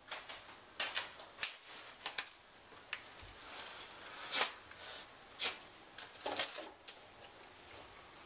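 Plastic packets and cloth being handled and pulled from a drawer, crinkling and rustling in a string of short irregular bursts.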